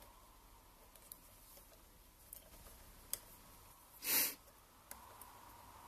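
Faint, scattered clicks of plastic wire connectors and wires being handled. One short, loud hiss about four seconds in.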